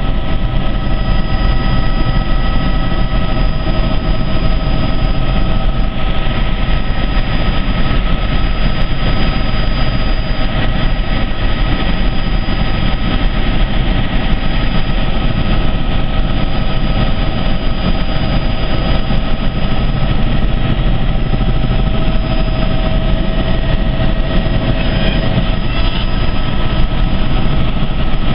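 Helicopter turbine and rotor noise, loud and steady, with several steady whining tones on top.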